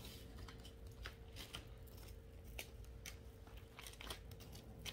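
Faint handling sounds: scattered light clicks and paper rustling, as of a notebook and paper test strips being handled, over a faint steady hum.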